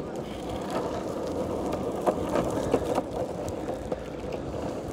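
Longboard wheels rolling over asphalt, a steady rumble, with a few light clicks about two to three seconds in.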